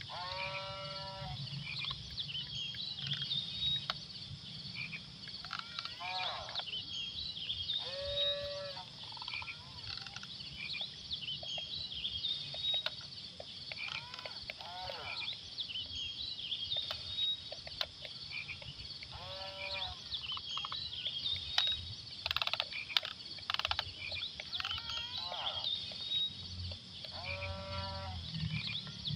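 Animal calls, each under a second long, sounding several times at irregular intervals of a few seconds over a constant high-pitched chirping of insects or birds.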